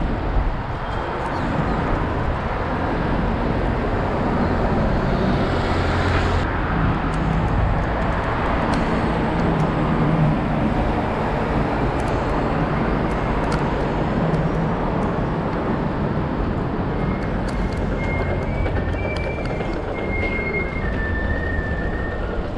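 Steady rushing wind and road noise on a bike-mounted action camera's microphone while riding a bicycle, with a few brief high tones near the end.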